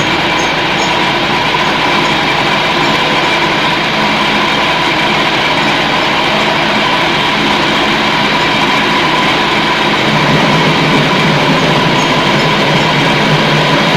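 Bakso meat-grinding machine running steadily, a loud continuous mechanical drone with a steady hum, the low part of the hum shifting slightly about ten seconds in.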